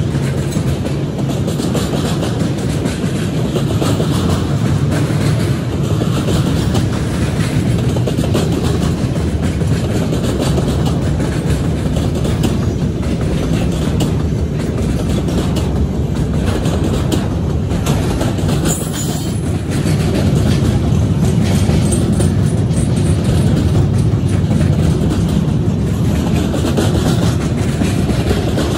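Double-stack intermodal container train's cars rolling past at close range: a loud, steady rumble of steel wheels on the rails, with repeated clicks.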